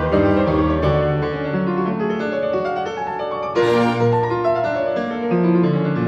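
Background piano music: a melody over sustained chords, with a brighter chord struck a little over halfway through.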